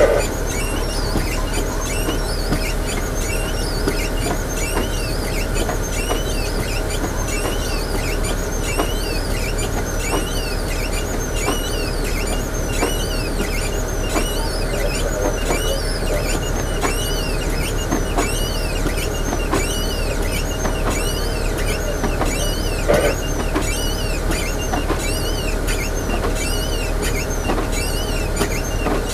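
A stationary vehicle's engine running steadily, a constant low hum with a few steady tones in it. Over it, a high rising-and-falling chirp repeats about one and a half times a second, and a single knock sounds about three-quarters of the way through.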